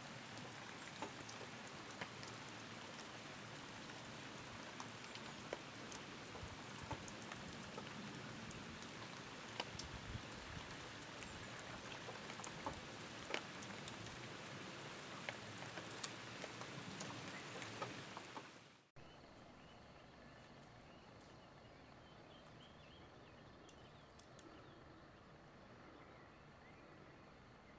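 Steady rain falling on a lake, an even hiss with sharp ticks of single drops landing close by. About two-thirds of the way through it fades out, leaving a much quieter outdoor hush with faint high chirps.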